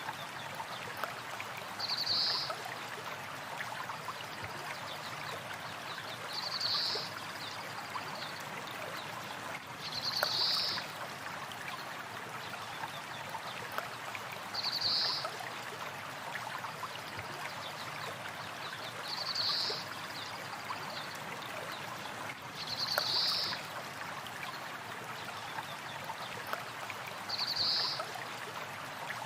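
A stream or small river flowing steadily, with a bird giving a short high call about every four and a half seconds, seven times.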